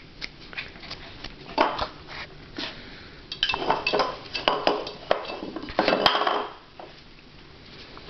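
A Shetland sheepdog knocking her water dish about on the floor, the dish clattering and clinking over and over. The clatter comes in scattered knocks at first, grows busy from about halfway in, and dies away a little after two-thirds of the way through.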